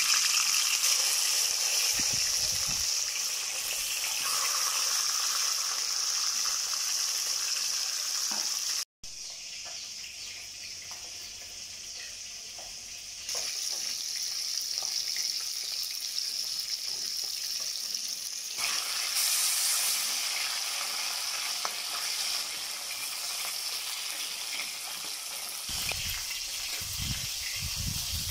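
Pieces of rohu fish frying in hot mustard oil in a metal kadai: a steady, dense sizzle, cut off for a moment about a third of the way through. Near the end, low rumbles come in under the sizzle.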